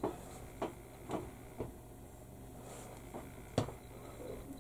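Small plastic model-kit parts being handled and fitted together, giving a handful of light clicks and taps, the sharpest about three and a half seconds in, over a faint steady hum.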